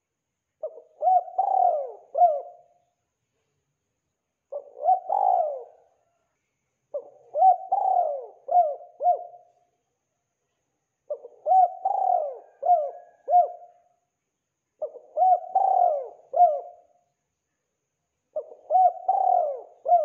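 Spotted dove (tekukur) cooing: six phrases of three or four coo notes each, repeated every three to four seconds with silence in between.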